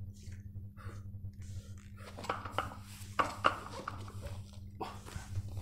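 A 60 kg barbell handled during wrist curls: scattered light knocks and clinks, the sharpest about three and a half seconds in, over a steady low hum.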